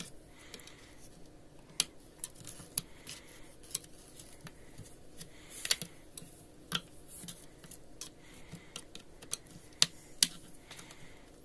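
Irregular sharp clicks and light scraping of plastic as the plastic body of a VT 1201 electric iron is pried away from its soleplate by hand. The clicks come roughly once a second.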